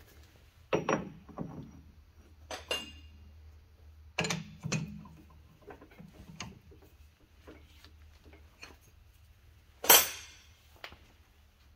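Scattered metal clanks and clinks as a round steel bar is set into a lathe chuck and clamped in its jaws, a few strikes ringing briefly, the loudest clank near the end. A faint low hum runs underneath.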